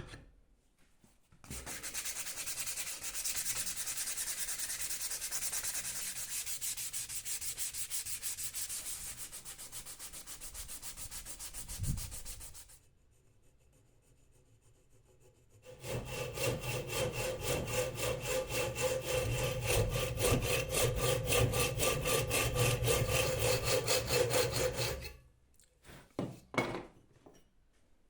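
Fast, even back-and-forth abrading strokes on the axe, in two long bouts of about eleven and nine seconds. Between them there is a single knock and a short pause, and a few light knocks come near the end.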